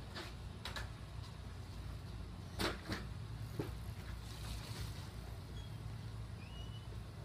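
Steady low outdoor rumble, with a few sharp knocks, the loudest pair a little before the middle, and short high chirps near the end.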